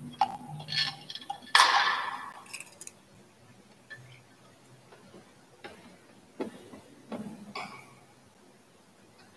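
Metal thurible (censer) clinking on its chains. There is a loud clank with a short ring about one and a half seconds in, then lighter clinks of the chains and lid every second or so as it is carried.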